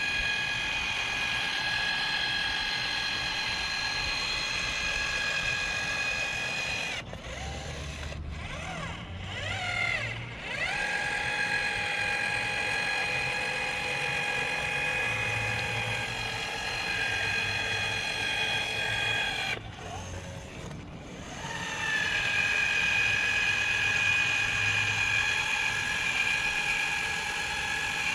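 Electric urethane gun's motor whining steadily as it pushes out a bead of windshield urethane. It stops and starts again twice, for a couple of seconds each time, about seven and twenty seconds in.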